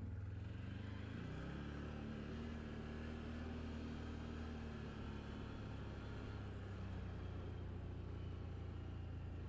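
Can-Am Outlander XMR 1000 ATV's V-twin engine pulling away, its pitch rising over the first couple of seconds, then running at a steady note at low road speed.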